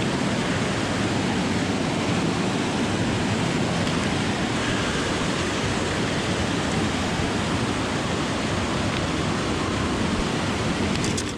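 Steady rush of a mountain creek's flowing water, an even loud hiss that cuts off suddenly at the very end.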